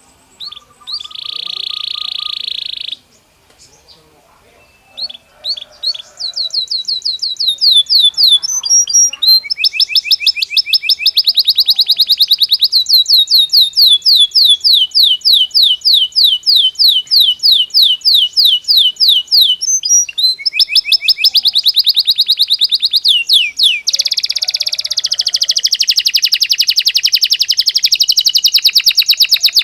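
Belgian canary singing: a short buzzy roll, a pause with a few soft notes, then long rapid trills of quickly repeated high notes that run almost without a break and grow denser near the end.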